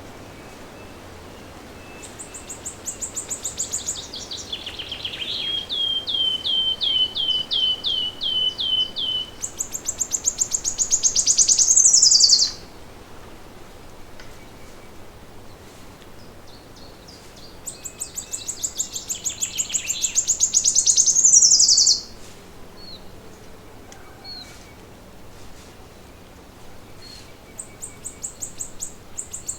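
A songbird singing long songs of fast, high repeated notes. Each song grows louder and stops abruptly, twice, with a third starting near the end. The first song has a lower, slower trill in the middle.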